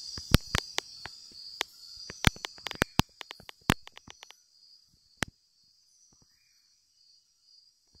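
Night-time rainforest insect chorus, a steady high-pitched buzzing, with irregular sharp clicks over it. A little over four seconds in, the chorus cuts off suddenly and near silence follows, broken by a single click.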